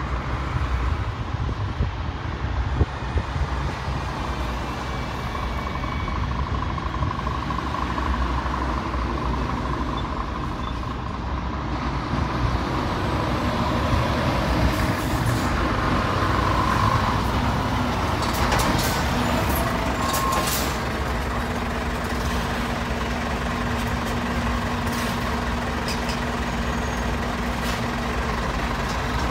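Scania lorry's diesel engine running as the truck pulls away and drives past at low speed with a loaded curtainsider trailer, a steady low rumble throughout. A few brief sharp sounds come about two-thirds of the way through.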